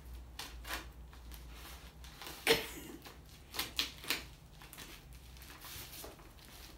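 Scissors cutting into a padded plastic mailer: irregular snips, clicks and crinkles of the wrapping, the sharpest about two and a half seconds in and a cluster around four seconds.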